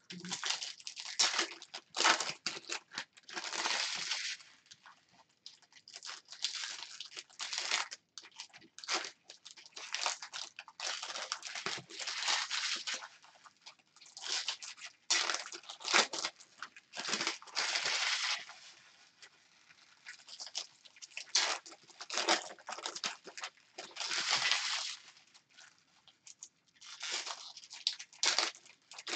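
Foil trading-card pack wrappers crinkling and tearing as packs are ripped open by hand, in irregular rustling bursts with short pauses.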